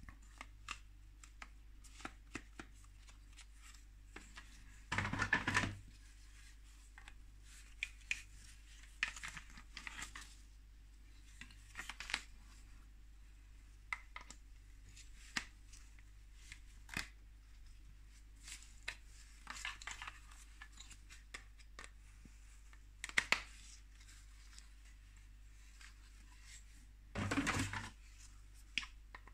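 Gloved hands handling a plastic Playmobil dragon figure: scattered light plastic clicks and taps, with two louder rustling scrapes about five seconds in and near the end.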